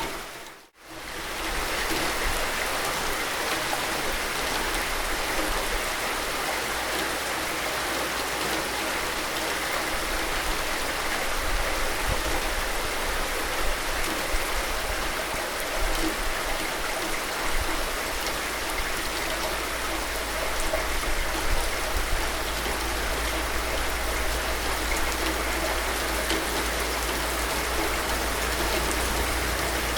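Steady, dense rainfall, an even hiss of drops with a low rumble beneath. It cuts out for a split second just under a second in, then resumes unchanged.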